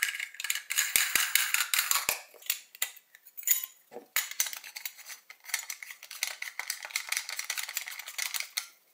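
Metal parts of a stainless steel kitchen sink basket strainer clinking and scraping in the hands as the pressure cup, lock nut and brass tailpiece are fitted and screwed together: a run of quick small clicks and scrapes that stops near the end.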